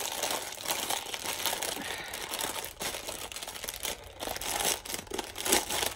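Packaging crinkling and rustling as items are handled and unwrapped by hand, with many short crackles.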